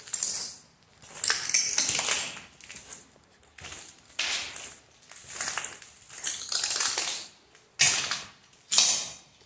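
Footsteps crunching over smashed debris on the floor, a gritty crunch roughly once a second.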